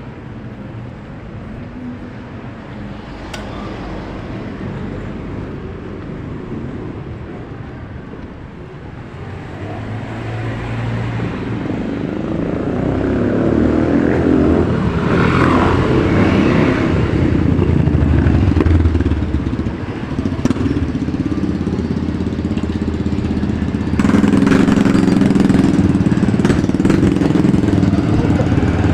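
Small motorcycle and scooter engines passing close by in street traffic. They are quieter at first and grow louder from about ten seconds in as riders approach and pass. A louder engine runs close by over the last few seconds.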